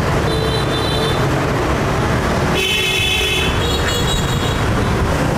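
Steady street traffic rumble with short vehicle horn toots: a brief one near the start, a louder one of about a second a little past halfway, and a short one right after it.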